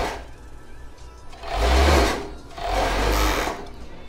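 Sun Special industrial overlock machine (serger) running in two short spurts, about a second each with a brief pause between, as it stitches around the edge of the fabric.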